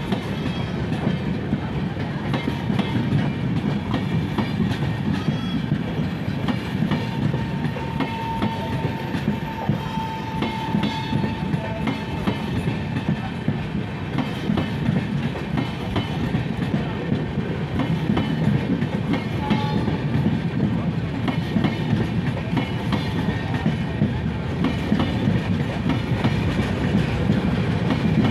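Passenger train coaches rolling past: a steady rumble of steel wheels on rail with a quick clickety-clack over the rail joints. A thin high note sounds for a few seconds about a third of the way through.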